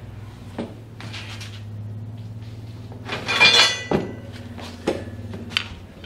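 Steel pieces clinking and knocking as they are handled and set in place under a magnetic drill, the loudest a ringing metal clatter about halfway through. A steady low hum runs underneath, from the drill's switched-on electromagnetic base.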